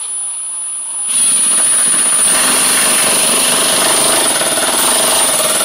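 Cordless impact driver driving a Reisser Cutter screw into a pine board. Its motor whines for about a second, then the impact mechanism starts hammering in a steady rattle as the screw bites and is driven home.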